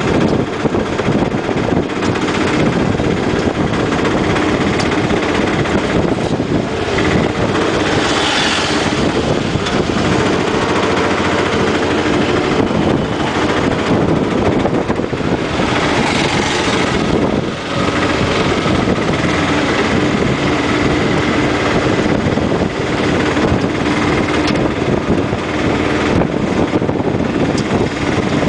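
Small tuk-tuk (auto-rickshaw) engine running steadily on the move, heard from the passenger seat.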